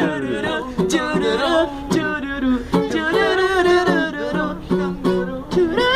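A voice singing a Brazilian funk melody to a strummed acoustic guitar (violão), with strums falling about once a second.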